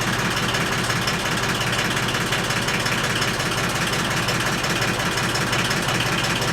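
Diesel engine of a hydraulic lifting machine running steadily, with an even, rapid pulse.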